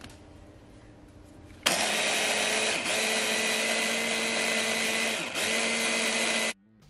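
Electric mini chopper food processor switched on, its motor and blades running steadily at high speed through herbs and seasoning. It starts about a second and a half in, dips briefly twice, and cuts off suddenly near the end.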